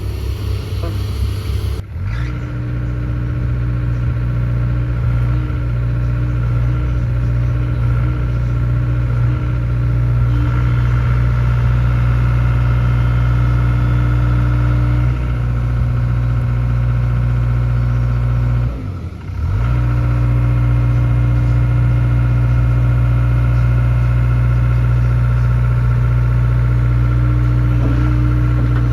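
Hitachi ZX85USB-6 excavator's diesel engine running steadily, rising in level about two seconds in, with a brief dip around nineteen seconds in.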